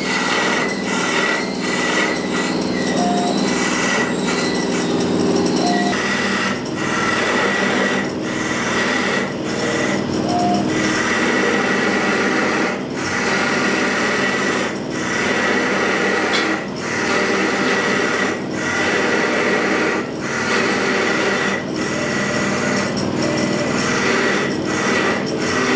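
VST 101 CNC wood-carving lathe at work, its cutter rasping against a turning wooden workpiece over a steady high whine. Short breaks in the noise come every couple of seconds.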